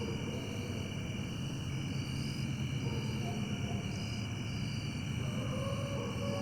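Faint coyote howls over a steady chorus of insects and a low rumble. One howl is held on a single low, nearly flat note and comes in about five seconds in.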